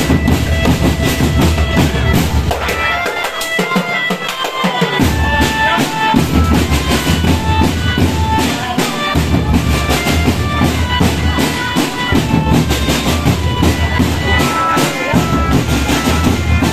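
A marching drum band playing: rapid drum strokes with bass drums under a melody line. The bass drums drop out for about two seconds, roughly three seconds in.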